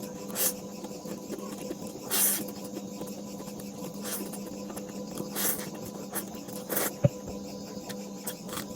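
Noodles being slurped in short hissy bursts, about five of them spread out, with a sharp click about seven seconds in and a faint steady hum underneath.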